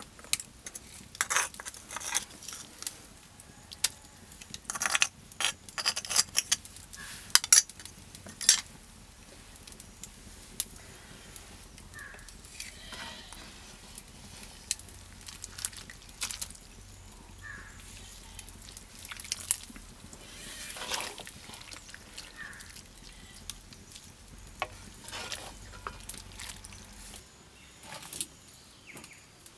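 A wooden spoon stirring and knocking in an iron wok of greens in water, with a series of sharp clicks and taps, thickest in the first eight seconds or so and scattered after.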